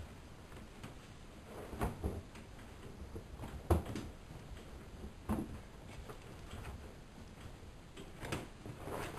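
Whirlpool Expert 1000 washing machine at work: a low rumble with irregular soft knocks and clicks every second or two, the loudest about four seconds in.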